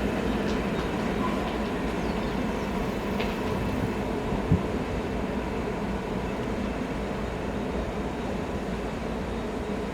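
Resort tram running, a steady rail rumble, with one sharp thump about halfway through.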